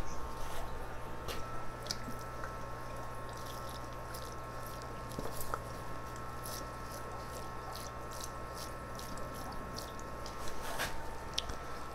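Water poured from a small cup onto freshly packed bonsai potting mix, trickling and dripping faintly as the soil soaks it up, with a few light clicks over a steady low hum.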